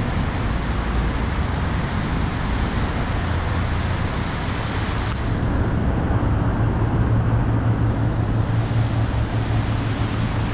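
Steady rumble and hiss of road traffic, with a low drone underneath. The hiss thins out about halfway through while the drone grows a little stronger.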